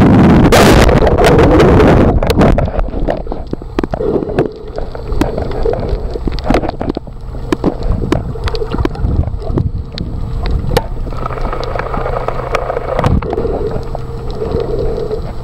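Underwater sound picked up by a submerged camera: water rushing and bubbling loudly over the housing for the first two seconds, then a low muffled water rumble with scattered sharp clicks and a faint steady hum underneath.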